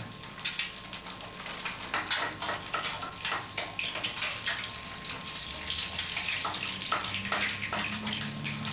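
Kitchen sounds of food preparation at the counter and stove: a steady water-like hiss with many irregular crackles and clicks.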